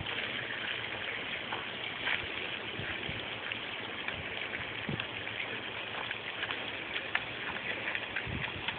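Water running from a garden hose onto wet mulch, a steady splashing hiss, with scattered small splashes as a dog digs at the spray.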